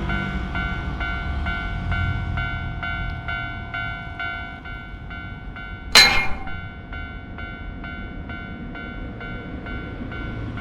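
Japanese level-crossing warning bell ringing steadily, about two strikes a second. A train's low rumble fades over the first few seconds. About six seconds in there is one sharp, loud crack.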